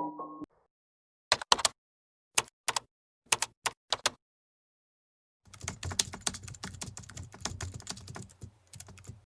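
Computer keyboard keys clicking: a few separate key presses, mostly in pairs, then about halfway through a run of fast, continuous typing. A short piano-like chime from the previous effect dies away at the very start.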